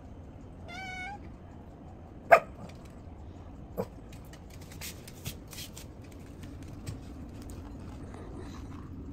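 A Shih Tzu gives one short whine with a wavering pitch about a second in. A sharp knock, the loudest sound, comes a little after two seconds, followed by a softer knock and scattered light clicks and taps.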